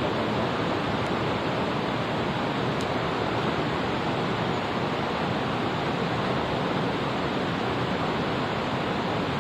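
Mountain stream water rushing steadily, an even, unbroken noise.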